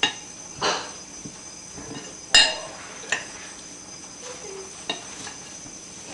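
A spatula scraping brownie batter in a bowl, with a handful of separate knocks against the bowl, the sharpest about two and a half seconds in.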